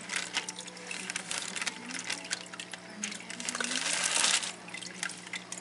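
Aquarium water sloshing and splashing as a fish net is worked about in the tank and inside a floating plastic fish bag, with small clicks and knocks. The splashing grows louder from about three seconds in and eases off after four and a half. A steady low hum runs underneath.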